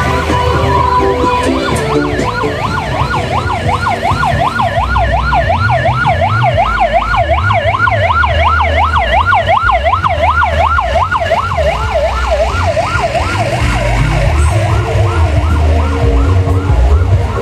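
Fast yelping siren, rising and falling a few times a second, over heavy bass from a loud sound system; the siren fades in the last few seconds.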